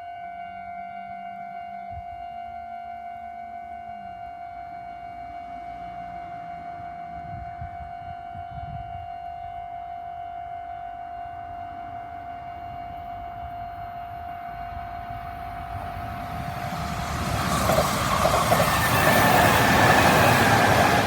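Japanese railway level-crossing warning bell ringing rapidly and continuously in its fast-tempo mode. A Kintetsu Minami Osaka Line train approaches and passes, its rumble building from about three-quarters of the way through and loudest near the end over the bell.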